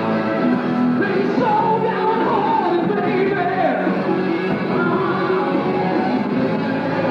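Rock music with a singing voice, playing steadily with held and gliding melody lines.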